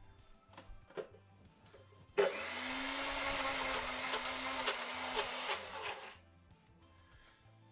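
A couple of light knocks, then a kitchen sink tap turned on full, running water into the sink for about four seconds with a steady low hum under the rush, before it is turned off.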